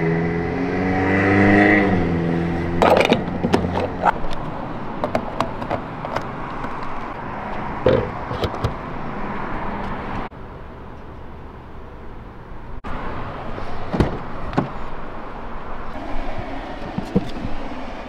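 Car sounds in cut-together clips: a steady noisy hiss with scattered clicks and scrapes, changing abruptly about ten and thirteen seconds in. A held pitched tone sounds in the first few seconds.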